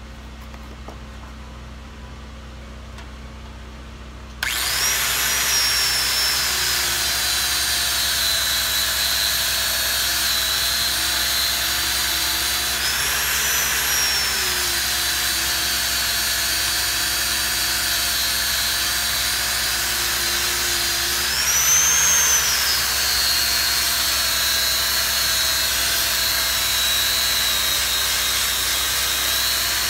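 An angle grinder starts up about four seconds in and runs steadily with a high whine, its red disc grinding on the steel shipping-container roof. The whine rises briefly in pitch twice, about 13 and 22 seconds in.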